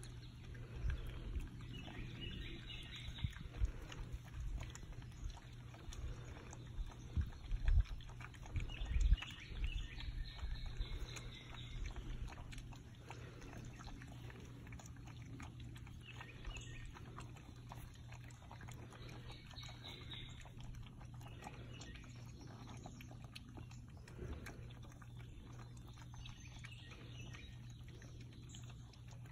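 Great Pyrenees–Anatolian shepherd puppies eating dry kibble from a plastic tray: a steady run of small crunches and clicks as they chew and nose the food. A few louder bumps come around eight and nine seconds in.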